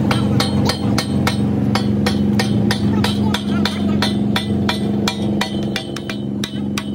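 Rapid, evenly spaced hammer strikes, about four a second, over a steady low hum from running machinery, during work on a mobile crane's hydraulic cylinder.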